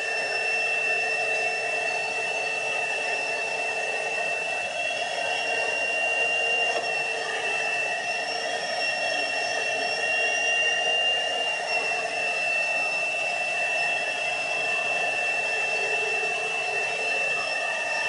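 McAllister tub vacuum cleaner running steadily with a high motor whine as its wand picks up polystyrene beanbag beads from a carpet.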